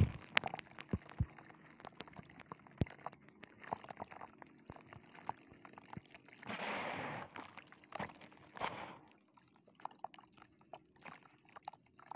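Dry, crumbly clumps of sandy powder crunched apart by hand and falling into a tub of muddy water: a string of sharp crackles and pops, with a longer rushing, splashy stretch about six and a half seconds in and a shorter one near nine seconds.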